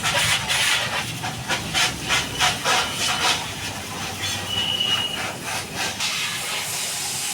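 Pressure-washer jet spraying water onto a motorcycle: a loud hiss that surges and falls as the spray sweeps over the bike. A brief high squeak sounds about halfway through.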